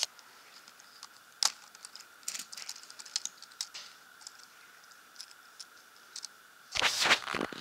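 Lego Technic plastic parts clicking and rattling as they are handled: scattered single clicks, then a denser run of clattering near the end.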